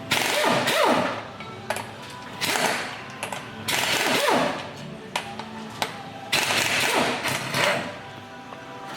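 A pneumatic wrench runs bolts in about four bursts of roughly a second each, with a falling whir as several bursts end, over steady background music.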